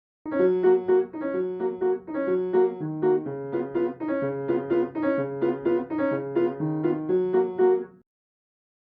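A short piano tune: a repeating melody of struck notes over a slowly changing bass line, stopping about eight seconds in.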